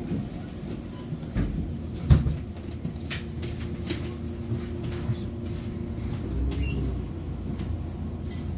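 City bus idling at a stop, heard from inside: a steady low engine hum with scattered clunks and knocks in the cabin, the sharpest about two seconds in. The engine note swells a few seconds before the end as the bus gets ready to pull away.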